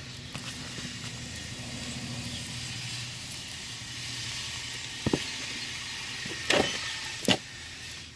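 Steady background noise with a low hum that fades out, broken by three sharp knocks in the second half.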